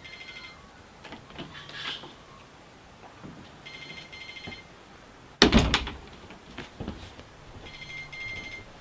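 A mobile phone ringing unanswered: a ringtone of fast pulsing high beeps that sounds three times, about four seconds apart, with a low buzz between the rings. A loud thump about five and a half seconds in.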